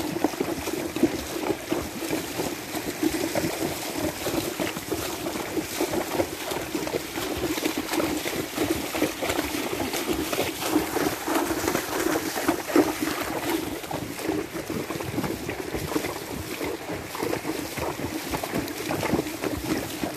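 Hooves of a palomino mare and a paint horse splashing as they walk through shallow flood water, an irregular run of splashes and sloshing.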